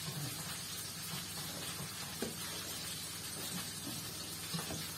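Steady faint hiss with a few soft taps, about two seconds in and near the end, as hands roll and press dough on a floured wooden pastry board.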